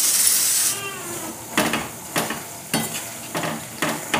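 Herbs frying in hot oil in an iron kadhai, with a loud high sizzle for the first moment. The sizzle then drops back, and a steel spoon stirs and scrapes through the pan about every half second.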